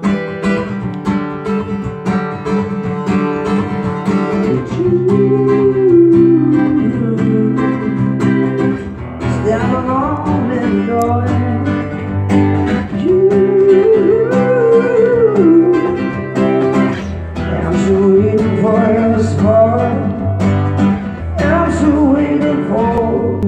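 Acoustic guitar strummed in a steady chord pattern while a man sings along into the microphone in long, bending vocal phrases, with no words clearly sung.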